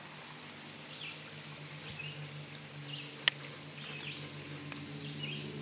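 Quiet outdoor ambience: a steady low hum, with faint short chirps every second or so, and a single sharp click about three seconds in.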